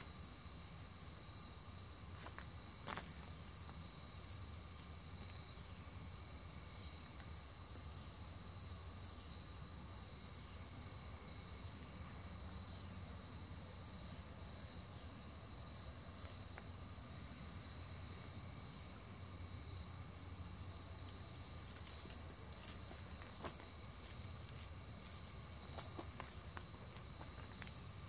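Steady chorus of crickets trilling, two high continuous tones, with a few faint sharp clicks or snaps here and there.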